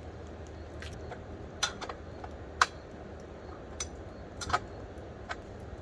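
A handful of sharp, irregularly spaced metallic clicks and clinks of hand tools, spread a second or so apart, as a wrench is worked on the motorcycle's chain adjuster lock nut. Under them runs a faint steady low hum.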